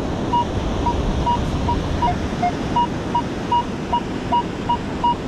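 Minelab Equinox 900 metal detector signalling a target through its speaker as the coil is swept back and forth over it: short beeps about two or three times a second, mostly one high note, with a lower note joining on some.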